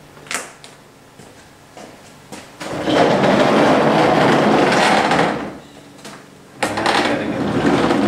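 Handling noise: a sharp click, then two spells of rustling and scraping, each a couple of seconds long.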